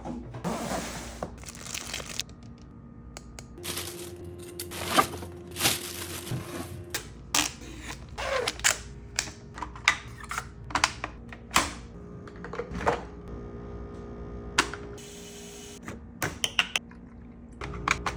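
A string of irregular sharp clicks, taps and thuds, with a faint steady hum underneath.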